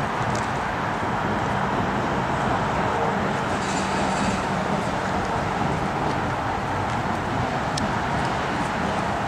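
Steady highway traffic noise: an even rush of passing cars and trucks.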